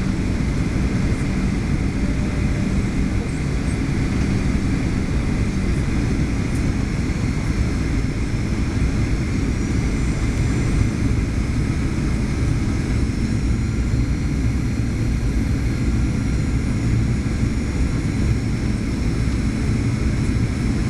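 Boeing 737-800 cabin noise heard from a first-class seat: the steady rumble of the CFM56 engines and airflow, with a faint high whine that rises a little in the second half.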